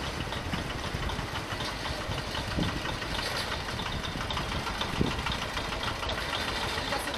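Small engines of motorcycle-drawn cargo carts and motorbikes running as they cross the rail level crossing, with a couple of thumps, the loudest about five seconds in.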